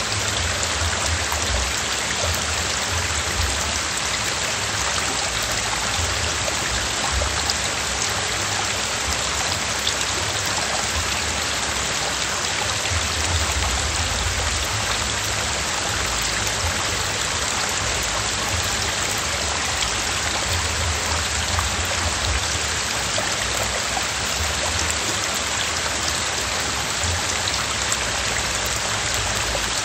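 Steady rush of a small stream running over rocks into a pool, an even hiss of moving water without a break.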